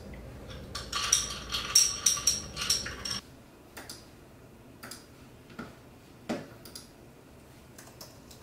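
A glass straw stirring and clinking against a drinking glass for about two seconds, with a ringing high tone. Then a few sparse, light clicks and taps, one of them a little heavier.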